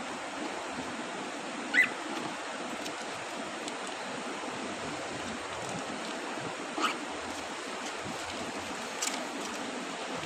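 Cockatiels giving three short calls a few seconds apart, the first the loudest and the last higher-pitched, over a steady background hiss.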